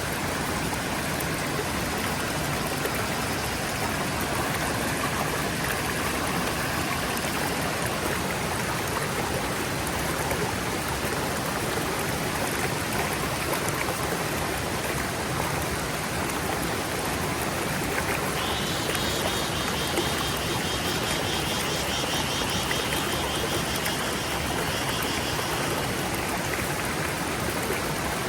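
Forest stream running steadily. In the second half a high, rapidly pulsing sound comes in over the water for several seconds, then stops.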